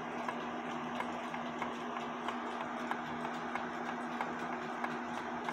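Seth Thomas pendulum clock's verge escapement ticking in an even tick-tock, the crutch foot opened up so the pendulum leader wire has room to swing from side to side and keep the clock running. A steady low hum lies under the ticks.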